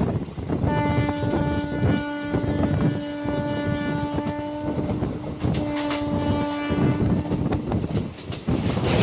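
WAP-4 electric locomotive horn sounding one long chord-like blast of about six seconds, starting just under a second in, its upper notes briefly dropping out past the middle. Underneath, the running clatter of ICF coach wheels over rail joints.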